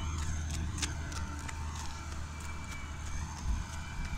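Footsteps crunching on dry, sandy ground, many short irregular clicks, over a steady low hum.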